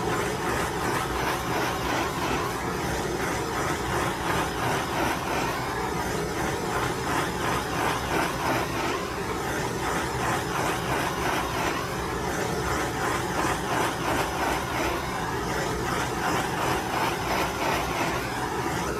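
Handheld propane torch burning with a steady hiss as its flame is swept over the wet epoxy flood coat to pop surface bubbles.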